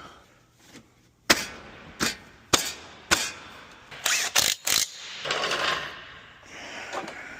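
Metal clicks and clunks from hands-on car repair work. Four sharp clicks come about half a second apart, then a quick cluster of clicks, then a short scraping rustle.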